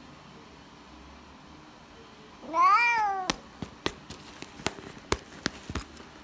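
Bengal cat giving one meow, rising then falling in pitch, about two and a half seconds in. A run of sharp clicks and taps follows it.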